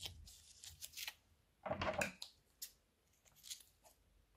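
Plastic piping bag full of slime crinkling as it is handled, with a longer, louder rustle about two seconds in, then the clicks of scissors snipping into the bag's tip.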